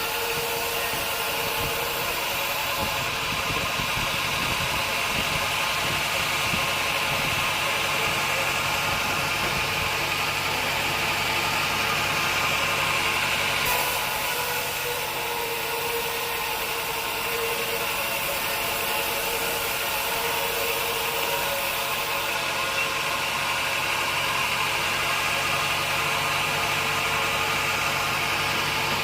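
Sawmill machinery running steadily: a continuous machine hum with several steady tones, changing character slightly about a third and two thirds of the way through.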